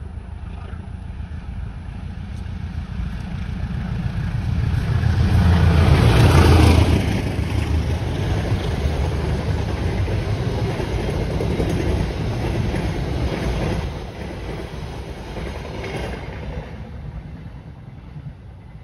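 Diesel-hauled passenger train passing. The locomotive's engine builds to its loudest about six seconds in, then the coaches roll by with a steady rumble of wheels on the rails, which drops off about fourteen seconds in and fades away.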